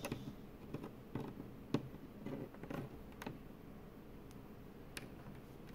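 Small desk items, a metal paper clip among them, picked up and handled on a tabletop: faint, scattered light clicks and taps.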